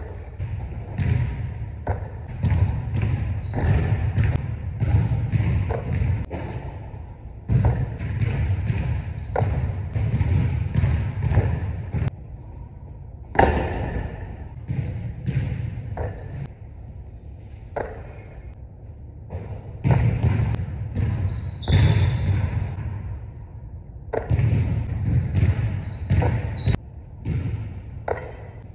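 Basketball dribbled on a hardwood gym floor, in several runs of quick bounces a few seconds long with short pauses between them, as between free-throw attempts. A sharp knock right at the start is the ball hitting the rim.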